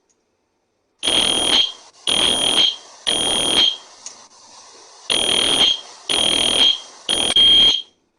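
Fire alarm sounding in the temporal-three evacuation pattern: three buzzing beeps about a second apart, a pause of about a second and a half, then three more.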